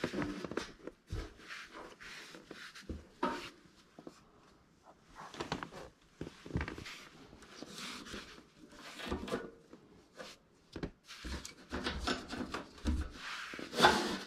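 Hands handling the furnace blower motor's wiring and housing: irregular rustling and scraping, with a few soft knocks.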